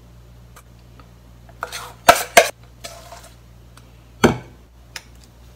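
A metal spoon clinking against dishes while scooping sticky whipped marshmallow mixture from a stainless steel bowl into a container: two sharp clinks about two seconds in and another just after four seconds, with lighter scrapes around them.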